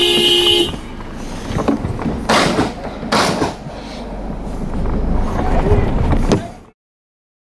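A vehicle horn sounds, ending under a second in. It is followed by a noisy jumble with two loud surges, building up until the sound cuts off suddenly near the end.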